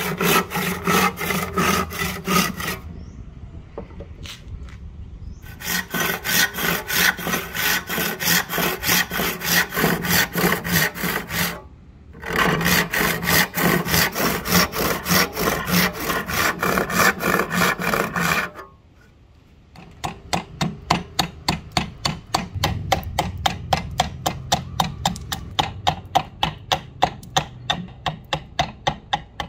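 Hand saw cutting a hardwood handle blank clamped in a vise, in runs of quick, even strokes, stopping for about three seconds near the start and briefly around the middle. After a short pause near the end of the sawing, a run of sharper, evenly spaced strokes follows as a broad blade is drawn along the wood to shave it.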